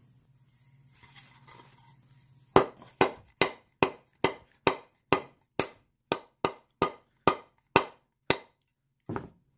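A block of wood striking a hand-held Jacobs steel three-jaw drill chuck, a steady run of about fourteen sharp knocks at two to three a second starting a couple of seconds in, then one more near the end. It is hammering the press-fit steel collar off the chuck body, which comes loose this easily because the collar was already slipping.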